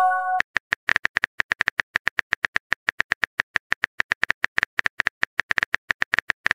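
Texting-app keyboard tap sounds: rapid, even electronic clicks, roughly nine a second, as a message is typed out. The tail of a short multi-tone message-sent chime sounds at the very start.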